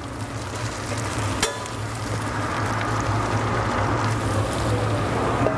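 Sautéed vegetables and tomato paste sizzling in a stainless steel pot as seared lamb shanks are dropped in. There is a sharp clink about a second and a half in, after which the sizzle grows louder. A steady low hum runs underneath.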